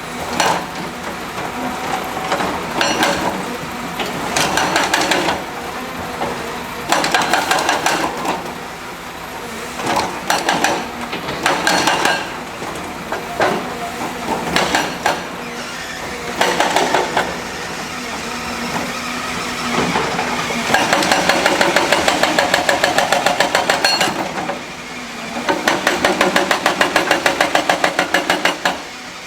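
Heavy construction machinery at work: an excavator's engine running under repeated metallic clanks and scrapes. Two stretches of rapid, even hammering come about two-thirds of the way in and again near the end.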